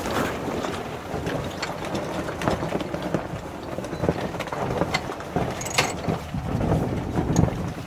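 Sailboat winch and halyard gear clicking irregularly as the mainsail is hauled up, over a steady low rumble of wind on the microphone.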